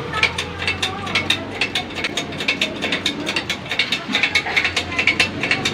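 Shop pressing machine at work pressing the power steering rack and its new oil seal into the rack housing: a fast, even run of clicks, about five a second, over a low steady hum.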